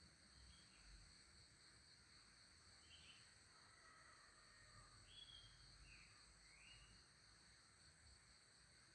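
Faint outdoor ambience: a steady high insect drone, with about five short bird chirps scattered through it.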